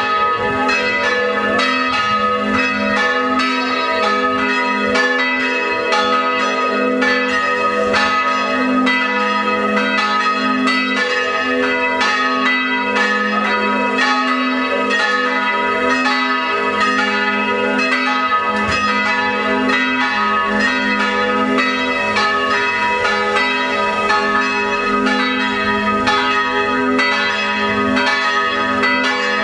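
Three swinging church bells, tuned A-flat, B and E-flat (the A-flat cast in 1640, the B by the Broili foundry in 1952, the E-flat by the Mazzola foundry in 1945), ringing together in a full festive peal (distesa), swung by an electromechanical drive. Strikes fall several times a second and overlap without a break, calling to mass.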